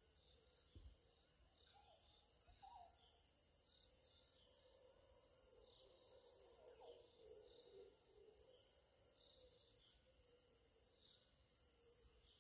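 Faint insect chorus: a steady high-pitched buzz with a rapid pulsing trill above it, and a few faint short calls about three and seven seconds in.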